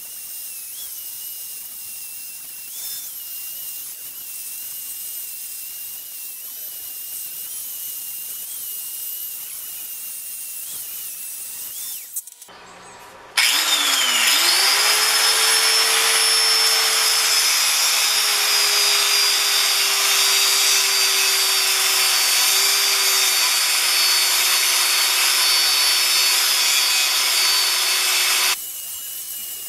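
Corded angle grinder with a cut-off wheel cutting into a steel casing: a steady whine with grinding noise, fainter at first. After a brief break about twelve seconds in, it spins up with a rising whine and cuts much louder, then cuts off abruptly near the end.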